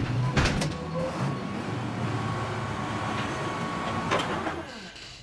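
Garbage truck's engine and hydraulic lifting gear running, with two metal clanks near the start and a steady hum, then dying away near the end.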